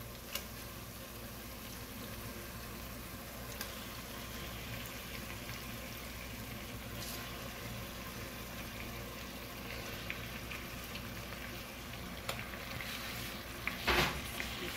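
Onion-tomato pepper masala sizzling steadily in a steel pot under raw chicken pieces: a low, even hiss with a few faint clicks, and a brief louder knock near the end.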